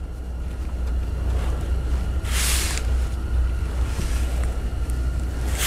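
Steady low rumble of wind-like noise on the microphone, with two short hisses, one about two and a half seconds in and one near the end.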